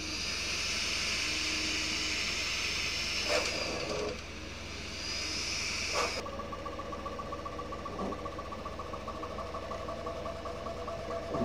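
3D printer running: a steady hiss with a high whine, changing abruptly about six seconds in to a lower, pulsing whine, with a few light clicks.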